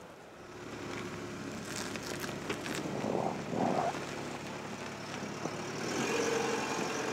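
Toyota HiAce-based camper van with its engine running as it moves off on the snowy campsite, the steady engine sound growing about six seconds in. A few brief knocks and clicks come a couple of seconds in.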